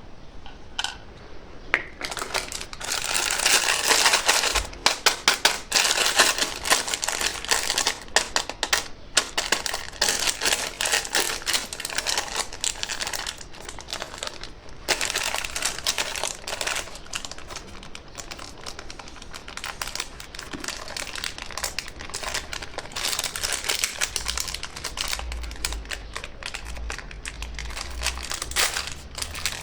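Close crinkling and crackling of candy wrappers, in dense rapid bursts from about two seconds in, with some low thuds near the end.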